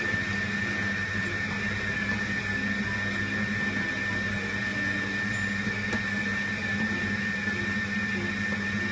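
Monsieur Cuisine (Lidl SilverCrest) food processor's motor running steadily at speed 5, its blade mixing frozen strawberries with sugar and cream into ice cream. A constant high whine sits over a low hum.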